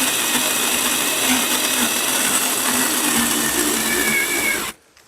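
Imoum Live battery-powered mini chainsaw running steadily as it cuts through a dead branch, then stopping suddenly near the end once the cut is through.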